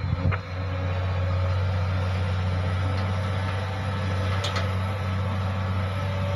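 Steady low machinery hum, like a heavy diesel engine idling, with a sharp metallic knock about a third of a second in and a lighter click about four and a half seconds in.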